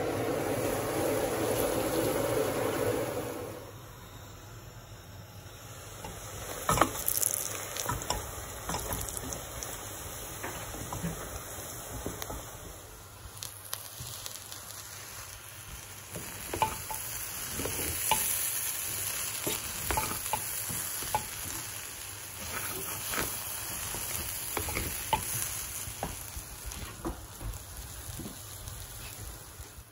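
Basmati rice with whole spices frying in a metal pot, sizzling while a wooden spatula stirs it, with many short scrapes and ticks of the spatula and grains against the pot. The hiss is louder for the first three seconds or so, then settles.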